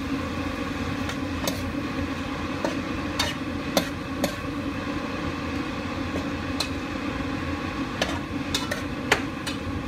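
A spoon stirring chopped tomatoes, onion and tomato paste in a pan, with scattered clicks and scrapes of the spoon against the pan over a steady low hum.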